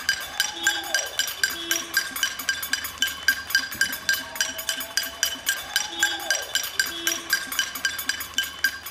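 Several people clapping and banging metal pots and pans in a rapid, steady rhythm, about six strikes a second, with a ringing metallic clink over the claps.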